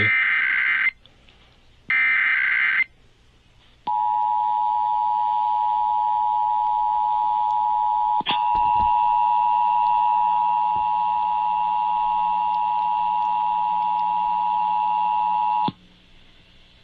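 Emergency Alert System required monthly test on air: two harsh, one-second bursts of SAME header data about a second apart. About four seconds in, the steady two-tone EAS attention signal starts, is held for about twelve seconds with a click about eight seconds in, and cuts off near the end.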